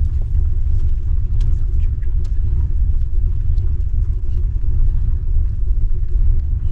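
Chevy car engine running steadily with a low, even rumble; it is not being revved.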